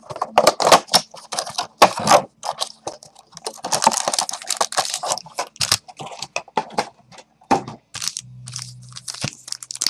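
Trading-card pack wrappers being torn open and crinkled by hand: a dense run of irregular crackles and rustles.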